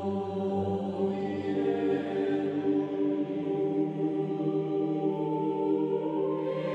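Background music of a choir chanting in the manner of monks, low voices holding long notes in chords that shift slowly, with a change of chord about five seconds in.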